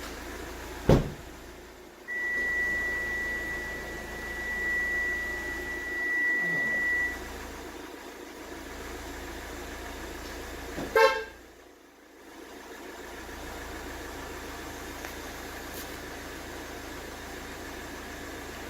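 Hyundai i30 GD with a Magic Car M8 aftermarket alarm: a sharp knock about a second in, then a steady high-pitched electronic beep for about five seconds, then one short car-horn chirp from the alarm about eleven seconds in.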